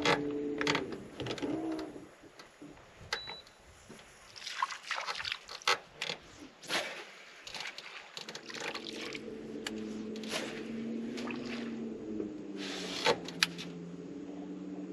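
Water splashing and trickling, with scattered sharp clicks from a fishing rod and reel being cast and reeled in. A low steady motor hum stops about a second in and comes back after about eight seconds.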